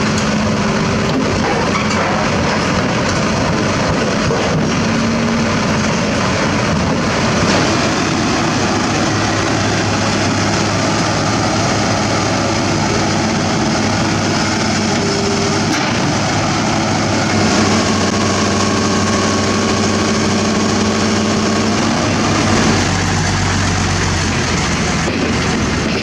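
Hitachi Zaxis 200 tracked excavator's diesel engine running steadily as the machine is driven on a self loader truck's deck and down its ramp. A few steady tones shift in pitch, loudest in the second half.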